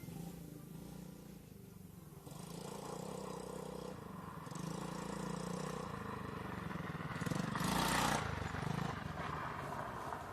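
Small ATV engine running steadily, getting louder about two seconds in, with a louder rush of noise around eight seconds.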